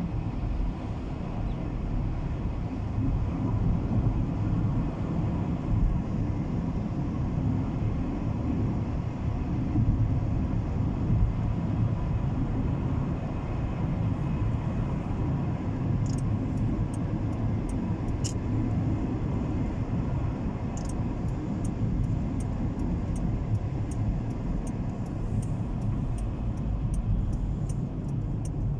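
Steady low rumble of a car driving, heard from inside the vehicle. Light ticking clicks join from about halfway through.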